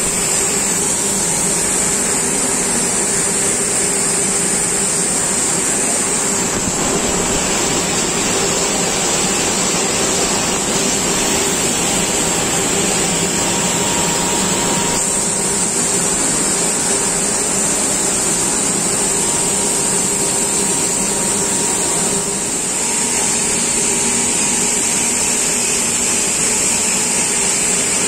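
Continuous induction bright annealing machine for stainless steel flexible hose running: a steady mechanical noise with a high hiss over a low hum, its tone shifting slightly a few times.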